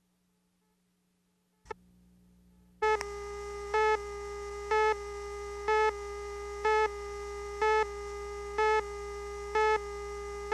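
A click and a low hum, then a steady buzzy electronic tone that sounds louder for a moment about once a second, like a run of beeps.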